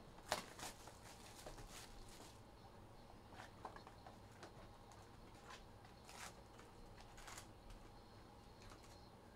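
Faint scattered rustles and clicks of trading card packs being opened and the cards handled.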